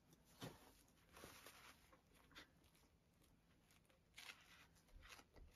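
Faint rustling of paper and cloth as a paper pocket is handled on a journal page and rubbed down with a cloth. There is a soft knock about half a second in.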